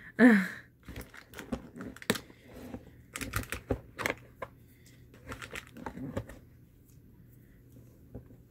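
Hatchimals toy packaging being handled: irregular crinkling with small sharp plastic clicks, dying away about two seconds before the end.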